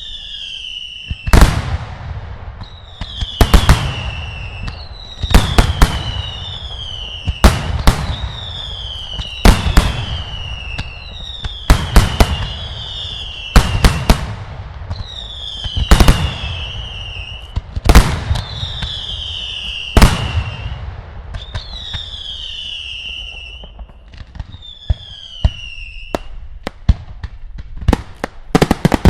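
Daylight fireworks: loud bangs about every two seconds, each preceded by a whistle falling in pitch. Near the end a rapid burst of crackling reports follows.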